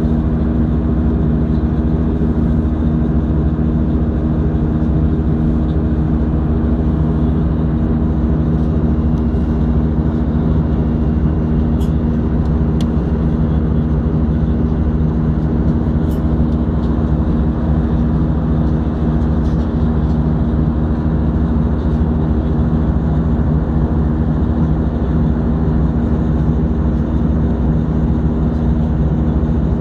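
Steady in-flight cabin noise of an Airbus A320-211, heard inside the cabin at a window seat: the drone of its CFM56-5A1 turbofan engines, with a steady low hum over the rush of airflow.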